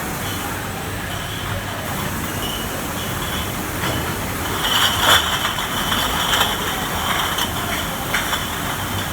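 NATE Athena step bottle washing machine running with a steady mechanical noise. From about halfway through, a spell of clattering and clicking, heaviest for a few seconds, rises over it.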